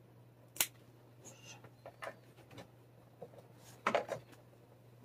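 Pet nail clippers cutting a cat's claws through a mesh restraint bag: a sharp clip about half a second in and a few smaller clicks, with a louder rustle of handling about four seconds in.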